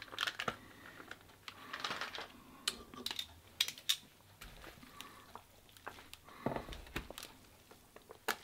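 A plastic sauce packet crinkling, then kitchen tongs clicking and scraping as they stir and lift noodles in a plastic tub: a scatter of small sharp clicks and short rustles.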